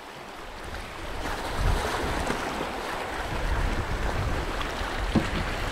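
Water swishing and lapping along the hull of a cedar-strip canoe as it moves through small waves, building over the first second, with a light wind rumble on the microphone.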